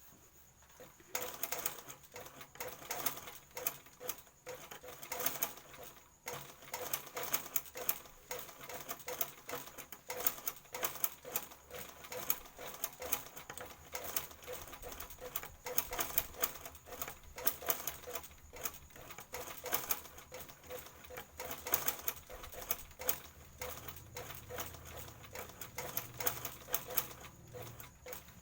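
Sewing machine stitching a skirt hem: a fast, dense clicking of the needle mechanism that starts about a second in and runs on, with a couple of brief slowdowns.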